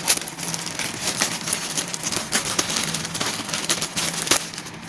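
Plastic courier mailer bag crinkling and crackling in irregular snaps as it is handled and cut open with scissors.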